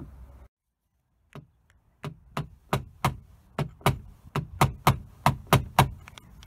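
A run of sharp, even hammer taps on a car body panel, about three a second, getting louder, typical of tapping down high spots with a knockdown tool during paintless dent removal.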